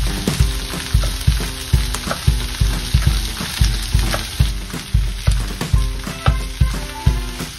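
Vegetables sizzling in a frying pan, with a kitchen knife now and then tapping through a green bell pepper onto a wooden cutting board, over background music with a steady beat.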